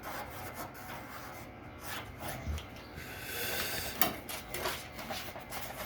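Irregular scraping and rubbing on sheet metal as cut lines are marked out on a car's quarter-panel patch, with a few sharp clicks about four seconds in.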